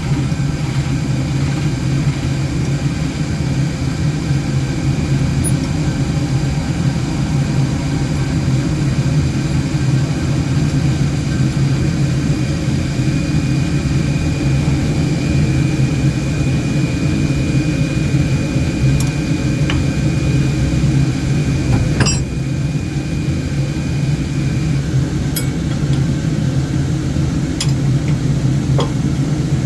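Wood lathe running steadily with a low hum while a bowl is hollowed out. A thin high whine joins about halfway through and stops a few seconds before the end, and a few sharp ticks come near the end.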